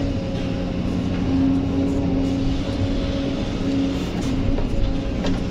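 Kobelco SK200 hydraulic excavator working under load, heard from inside the cab: the diesel engine and hydraulics run with a steady low rumble and an even humming tone. A couple of light knocks come near the end as the bucket swings over to dump into the truck.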